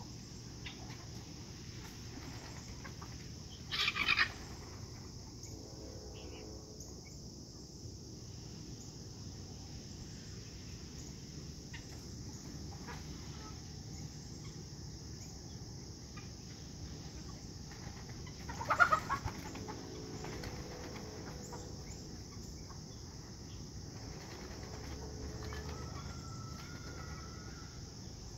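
Chickens clucking, with two short, loud calls about 4 seconds in and again near 19 seconds.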